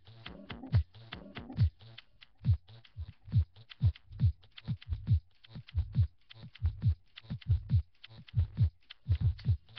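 Electronic kick drum playing on its own in a house beat, each hit a short low drop in pitch with a click on top, about two hits a second with some in quick pairs.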